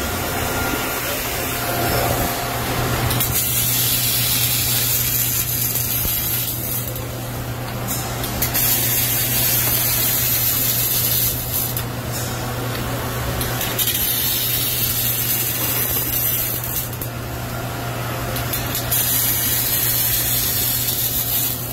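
Robotic MIG welding arc of a Motoman SK6 cell hissing and crackling in about four runs of a few seconds each, with short pauses between runs. A steady electrical hum runs underneath.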